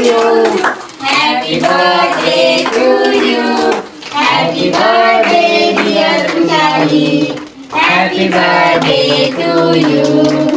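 Singing in long held notes, in four phrases separated by short pauses.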